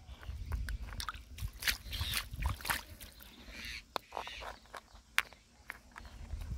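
Irregular clicks, knocks and sloshing from clams being dug out by hand in mud and shallow water, over a steady low rumble.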